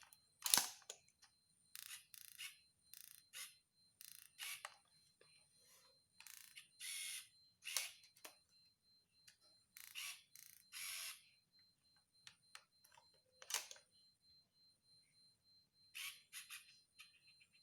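Faint handling noises of camera lenses and their packaging: a string of short rustles and scrapes with a couple of sharp clicks, over a faint steady high-pitched tone.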